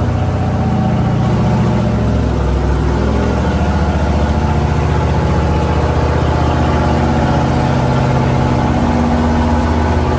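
Recovery pickup's engine running steadily at low speed under load, pulling a disabled truck on a hitch-mount winch through soft mud and water.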